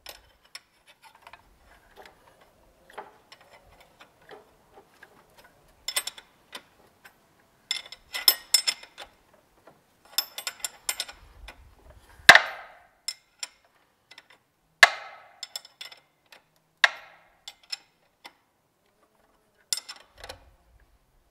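Hand tools working on an engine: a ratchet wrench clicking in short runs as fittings are tightened, among small metal taps. Three sharp metallic clanks with a ringing tail come about halfway through, the first the loudest.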